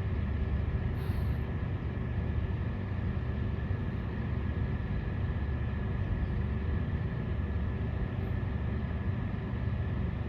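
Machinery running steadily: a low rumble with a constant high whine through it.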